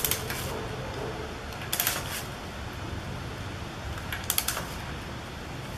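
Ratcheting torque wrench tightening a swing arm pivot-bolt nut: three short bursts of rapid ratchet clicks, about two seconds apart.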